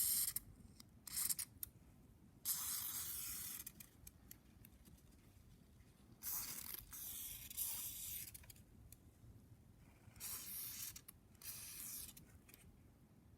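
Repeated bursts of spray hiss while a brush cutter carburetor is cleaned. Some bursts are short and others last a second or two, with pauses in between.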